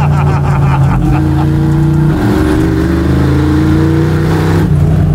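Small-block Chevy V8 of a Chevy C10 drift truck running under throttle while driving. The engine note shifts about two seconds in, climbs steadily, then drops near the end.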